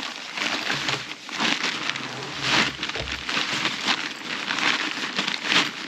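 Crinkly camping-gear material rustling and crackling as it is handled and pulled, in uneven bursts.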